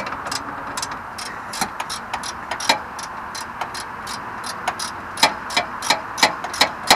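Hand socket ratchet clicking as a fastener is worked loose: a string of sharp separate ticks, sparse at first, then about three a second from roughly five seconds in.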